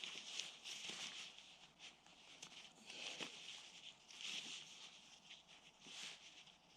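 Faint, irregular rustling with soft crackles.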